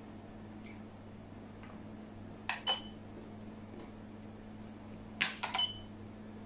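Xiangqi pieces clacked down on a wooden board as moves are made: two sharp clicks about two and a half seconds in, then three or four more a little after five seconds, over a steady low hum.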